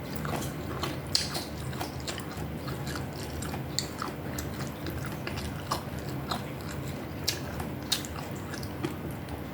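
Close-up eating sounds: chewing and biting, with many small sharp mouth clicks and smacks scattered through it.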